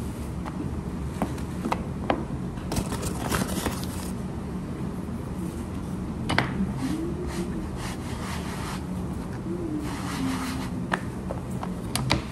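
Hand-shaping momo dough: a wooden rolling pin tapping and rubbing on a cutting board, with light clicks and soft scrapes of dough, over a steady low hum. A short wavering hum comes twice near the middle.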